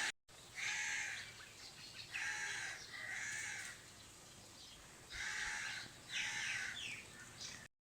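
A bird calling outdoors, about five separate calls each under a second long, with short quiet gaps between them.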